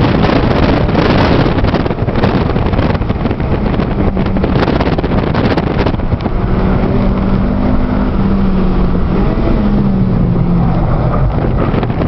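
Cabin sound of a 2008 Honda Civic Si sedan at speed on track: its four-cylinder engine running hard under a loud rush of wind and tyre noise. About halfway through the rushing hiss eases and a steady engine tone comes through more clearly.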